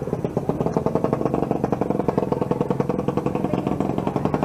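Motorcycle engine idling with a rapid, even pulse.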